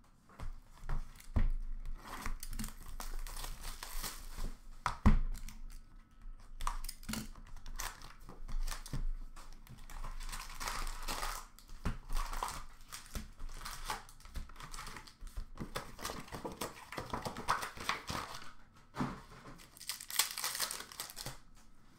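A sealed box of Upper Deck hockey cards being unwrapped: plastic shrink-wrap tearing and crinkling, the cardboard box handled and opened, and foil card packs rustling as they are lifted out. A sharp knock about five seconds in.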